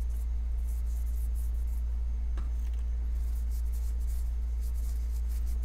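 Faint, irregular rustling strokes of a cloth and alcohol pad wiping a knife handle scale clean, over a steady low hum.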